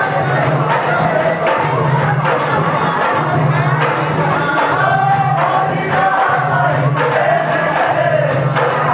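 Live Tharu folk song and dance music: a group of voices singing together over double-headed barrel drums beaten by hand in a steady rhythm.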